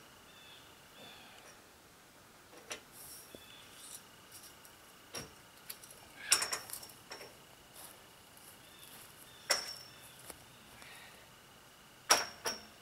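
Metal tent-frame pipes clinking and knocking together as the tubes are fitted into their joints: a few sharp metallic clinks several seconds apart, the loudest about halfway through and two close together near the end.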